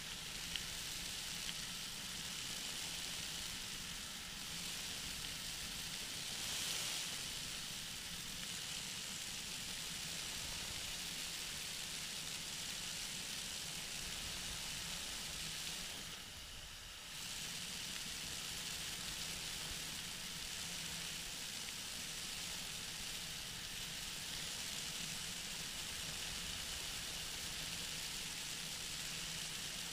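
Steady hiss of wind and engine noise from a flexwing microlight trike in flight, with a faint low hum under it. It dips briefly for about a second around the middle.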